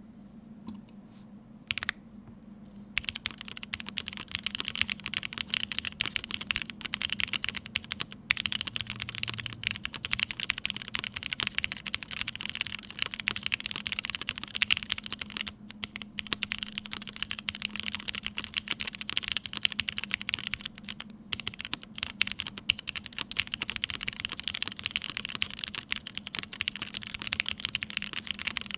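Typing on a TGR Jane V2 ME mechanical keyboard with lubed Vintage Black linear switches in an O-ring mount, PC plate and GMK keycaps. A few single keystrokes, then rapid continuous typing from about three seconds in, with two short pauses.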